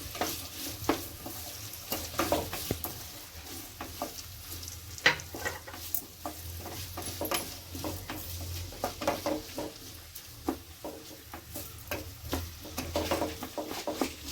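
Onions frying in hot oil in a kadai, sizzling, while a spatula stirs and scrapes them against the pan in irregular strokes.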